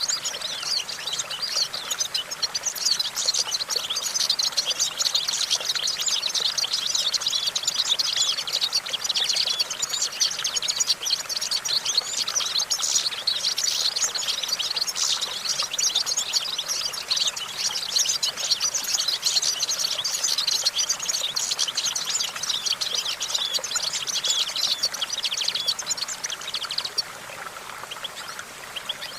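European goldfinch singing: a long, fast run of high twittering and chirping notes that breaks off about 27 seconds in.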